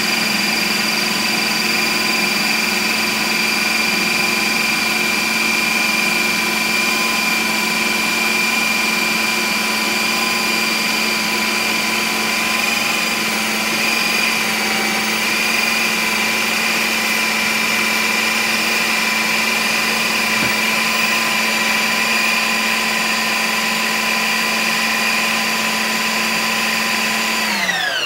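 Ninja Creami ice cream maker's motor driving its blade through a frozen pineapple pint, a loud steady whine. Near the end the whine drops in pitch as the motor spins down at the end of the cycle.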